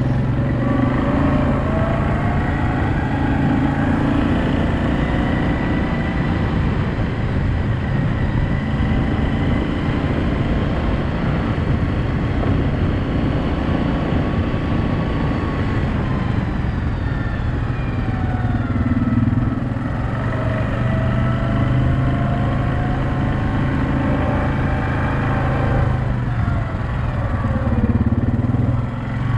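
Yamaha Kodiak 700 ATV's single-cylinder four-stroke engine running under way, its pitch rising and falling as the throttle changes.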